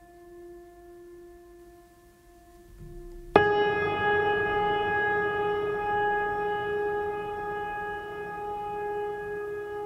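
Mellow instrumental music with long held notes: a soft sustained tone, then about three seconds in a much louder new note starts sharply and is held, slowly fading.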